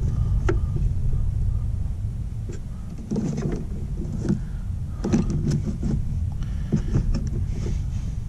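Handling sounds of hands working with wiring: rustling and light knocks in several short clusters over a steady low rumble.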